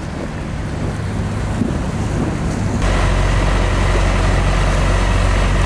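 A RIB under way on an OXE 150 hp four-cylinder diesel outboard: steady motor and water noise with wind on the microphone, stepping up sharply about three seconds in.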